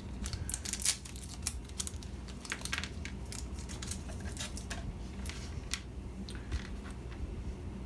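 Irregular light clicks, taps and crinkles of small parts and plastic packaging being handled, over a low steady room hum.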